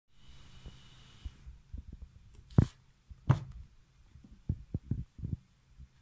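Irregular dull thumps and knocks from handling, the two loudest about two and a half and three and a quarter seconds in, over a low steady hum.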